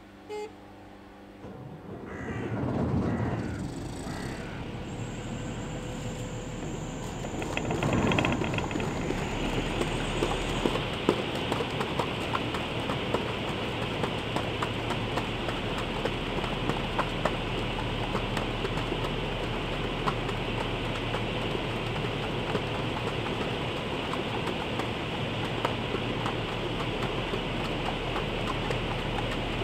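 Griffon 12000TD hovercraft starting up: its engines and lift fans spool up in two rising surges, then settle into a steady loud rush of fan and propeller noise as the craft lifts onto its inflated skirt. A thin high whine sounds briefly in the first third, and scattered sharp ticks run through the steady part.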